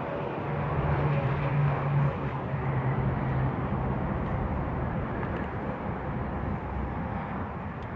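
Steady outdoor vehicle noise, with a low engine hum that drops a little in pitch about two seconds in and fades out by the middle.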